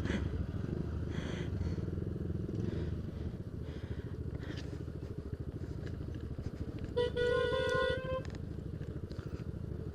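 Yamaha Aerox scooter's single-cylinder engine running steadily while riding. About seven seconds in, a horn sounds once for about a second.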